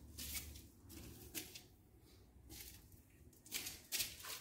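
Faint, scattered short handling and rustling noises, with a few brief louder swishes near the end as a hand dips a cleaning brush into a bucket of water.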